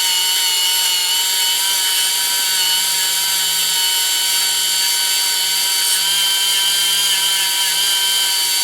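A power tool spinning a blue plastic fiber abrasive wheel at steady speed, giving a high whine, while a ratchet part is cleaned up on it.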